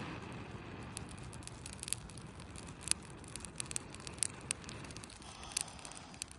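Small campfire crackling, with irregular sharp pops and snaps over a steady low rumble.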